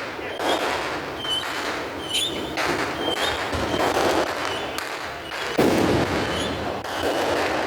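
Fireworks going off one after another: a continuous run of bangs and crackling, with short high whistles among them. A bigger, louder burst comes a little past two-thirds of the way through.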